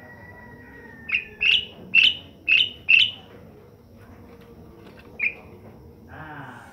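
Asian pied starling giving a run of five loud, harsh calls, about two a second, then a single call a couple of seconds later. A thin held whistle runs under the first second and a half.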